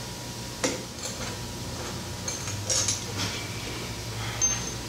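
A hand tool clinking against the steel of a machine vise as the stationary jaw's bolts are loosened from underneath: a few sharp, scattered metallic clicks and taps, one near the end with a brief high ring, over a steady low hum.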